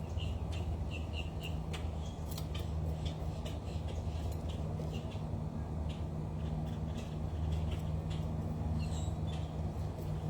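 Small birds chirping: many short, high calls in quick succession, with a few clicks, over a steady low hum.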